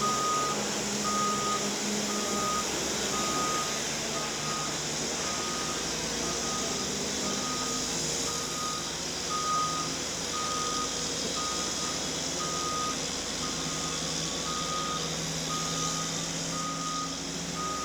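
Forklift reversing alarm beeping steadily, about once a second, over the steady running of its engine.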